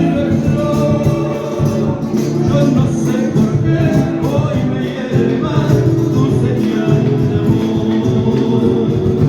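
Latin American folk music with singing and a steady percussion beat.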